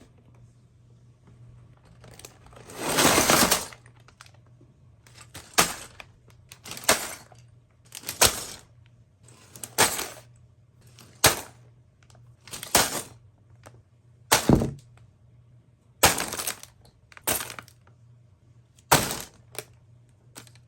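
LEGO set packaging and plastic pieces being handled: a longer crinkling crackle about two seconds in, then about a dozen short sharp clatters, one every second or so.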